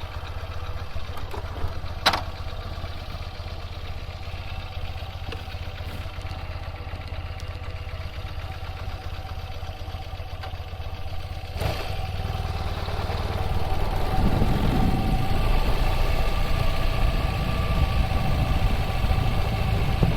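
BMW R100RS's air-cooled boxer twin engine running at a steady idle, with a sharp click about two seconds in and another past halfway; from about two-thirds of the way through, the engine gets louder.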